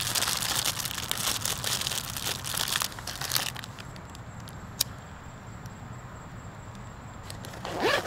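A plastic bag of solid fuel tablets being crinkled and opened by hand for the first few seconds. Then one sharp click about five seconds in, and a brief louder rustle near the end.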